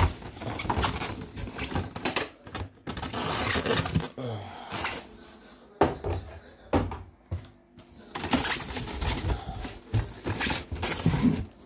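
Handling noise from a plastic portable embroidery machine being gripped and shifted inside its cardboard box: irregular rustling and scraping of cardboard and plastic, with scattered knocks and clunks.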